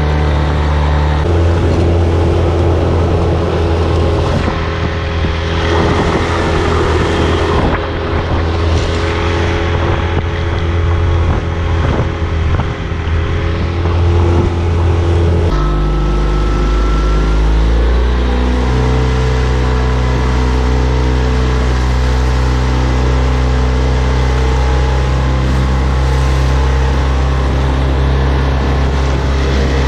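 Tohatsu 9.8 hp outboard motor running steadily, pushing an inflatable boat along, with wind and water noise that is heaviest in the middle. About halfway its note drops, then climbs over the next two seconds and holds.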